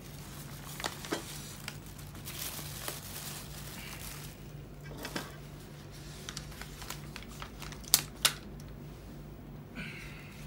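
Brown paper food wrapper crinkling and rustling as it is handled and unfolded, with scattered small clicks and two sharp clicks about three-quarters of the way through.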